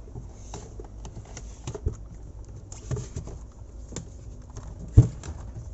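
Handling noises as a refrigerator door's rubber gasket is pulled off: scattered soft clicks and knocks, with the loudest thump about five seconds in.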